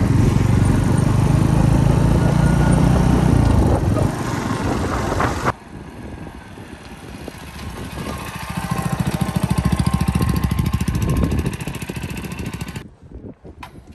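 Mutt Mastiff 250's single-cylinder Suzuki GN-type engine running on the move, heard across edited riding shots: loud at first, then after a sudden cut a quicker, even thumping that swells and fades, before a cut to something much quieter near the end.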